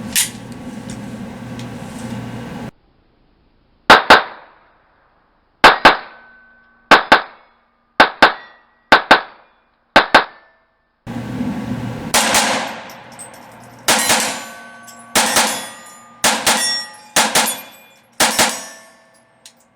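Taurus TX22 .22 LR pistol fired in quick double taps, about a dozen pairs of sharp cracks. A metallic ring trails some of the shots.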